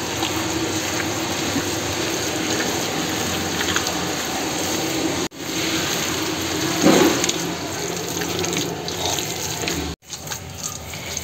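Wet squelching and squishing of a hand kneading raw chicken mince mixed with chopped onion, coriander, green chillies and spice paste. The sound is steady and breaks off briefly twice.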